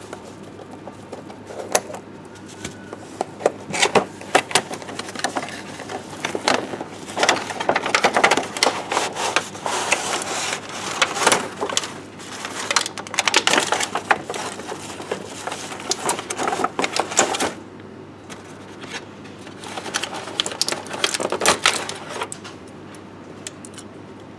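Hard plastic toy pieces clicking and clattering as they are handled, in quick irregular runs. The clatter stops suddenly about two-thirds of the way through, then comes back briefly near the end.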